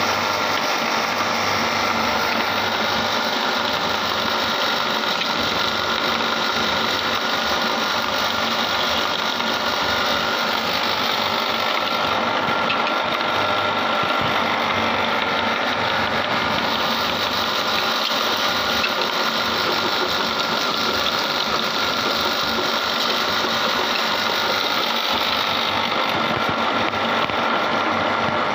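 Electric meat grinder running steadily, its auger turning and crushing lemons dropped into the hopper.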